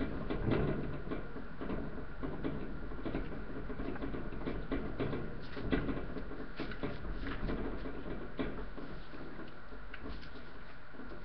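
Boston terrier puppies playing on newspaper: irregular scrabbling of paws and crinkling, rustling paper, with scattered small clicks.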